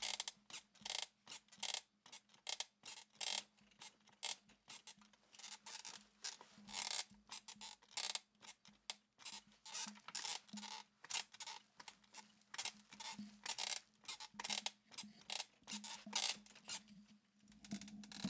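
Creaking wooden bed sound effect: a quick, irregular run of short creaks and clicks, about two or three a second, over a faint steady hum.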